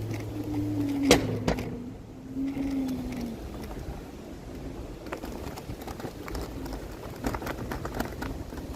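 Electric scooter ride noise on a rough dirt trail: a low rumble with scattered knocks and clicks from bumps, the sharpest about a second in, and a faint wavering hum in the first few seconds.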